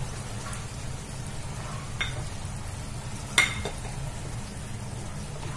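Onion-tomato masala frying in a pan as ground spices are tipped in and stirred with a wooden spatula, over a steady low hum. Two sharp clinks ring briefly, about two seconds in and, louder, about three and a half seconds in.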